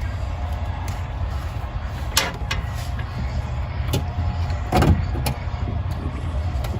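Scattered clicks and knocks of hands working on wiring in a car's trunk, over a steady low rumble.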